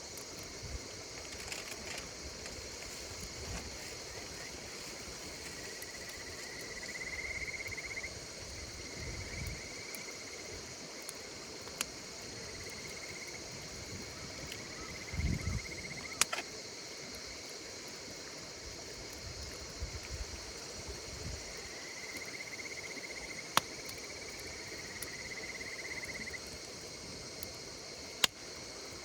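Steady chorus of insects singing, with a trilling call twice (around 7 and 24 seconds in), over a campfire that crackles with a few sharp pops.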